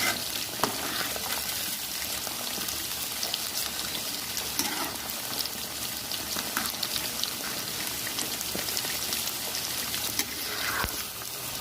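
Batter-coated chicken pieces deep-frying in hot oil in a kadai: a steady sizzle with constant fine crackling.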